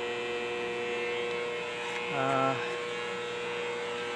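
Yamato AC arc welder left switched on between cuts, giving a steady electrical hum with its cooling blower running continuously to cool the machine down.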